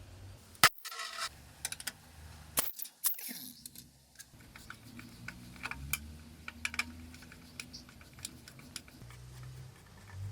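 Scattered clicks and light knocks of hand tools and metal parts being handled as a motorcycle is taken apart, with one sharp knock about a second in.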